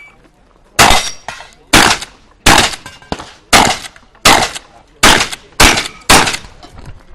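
Shotgun fired eight times in quick succession, each loud report about half a second to a second after the last, as in a timed run of a practical shotgun stage.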